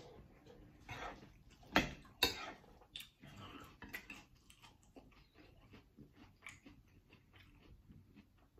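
A person chewing a big mouthful of Cap'n Crunch's Crunch Berries cereal soaked in milk, with irregular small crunches. Two sharper, louder clicks come about two seconds in.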